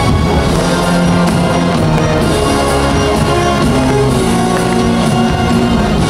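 Loud music playing without a break, with held notes over a sustained low bass: the soundtrack of a nighttime fountain and fireworks show.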